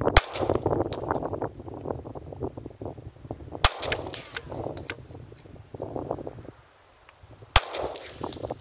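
Three shots from a Glock 20 SF 10mm pistol firing PPU 180-grain jacketed hollow points, spaced about four seconds apart, each sharp crack followed by a brief ring. Gusty wind noise on the microphone fills the gaps between shots.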